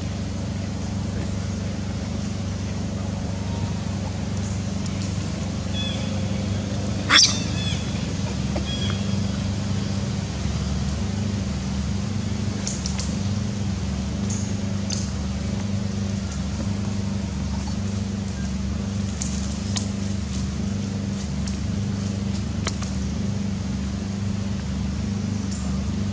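A steady low, engine-like hum, with one sharp high squeak about seven seconds in and a few short faint high chirps later.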